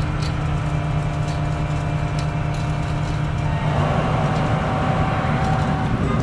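Concrete boom pump truck running steadily while pumping concrete through its end hose into a pier hole. About four seconds in, its note shifts and it gets a little louder and rougher.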